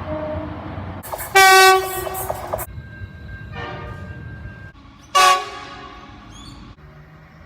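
Train horn sounding in separate blasts: a loud blast of about a second starting about a second in, a fainter horn after it, and a second loud blast about five seconds in that fades away.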